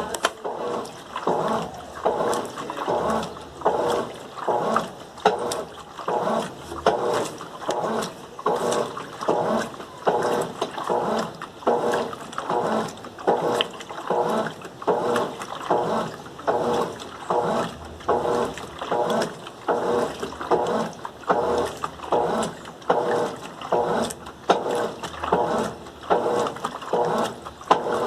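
Colormaq LCA11 top-loading washing machine agitating a water-soaked load of bed and bath linens without turbo: an even, rhythmic swish-and-slosh of the agitator, about three strokes every two seconds.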